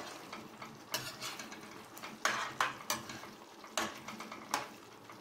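A spoon stirring thick fish curry gravy in a black kadai, scraping and knocking against the pan in irregular strokes about once a second.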